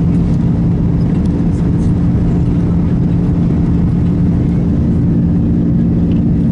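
Airbus A330-200 jet engines running: a steady low rumble with a hum of several steady tones.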